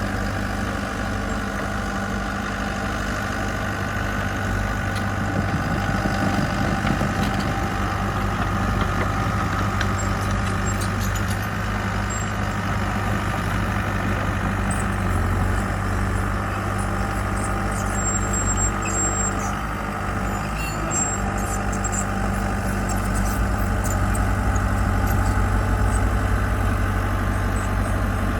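Diesel engine of heavy construction machinery, a mini dozer or dump truck, running steadily at a low, even pitch.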